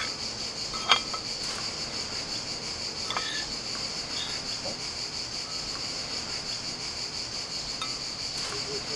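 Steady high-pitched chorus of insects, with a few sharp clinks of a serving utensil against the salad bowl as the salad is tossed: a loud one about a second in and another about three seconds in.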